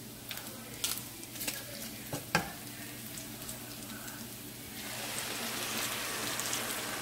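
Diced pork frying in a nonstick pan, with a few sharp clicks and scrapes of the spoon against the pan. About five seconds in, the sizzling grows louder and steadier as red chile mole sauce is poured onto the hot meat.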